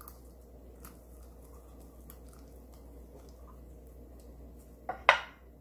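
Soft, faint squishing and rustling of doenjang and cooked radish greens pressed and moved about by a gloved hand in a bowl, with a sharp clack about five seconds in.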